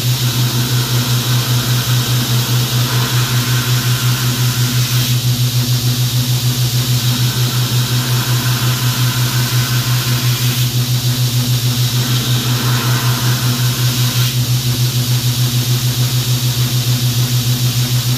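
A belt grinder runs with a steady, loud hum while a 1095 steel knife blank is pressed against the belt. The grinding of the steel comes and goes in several passes of a few seconds each.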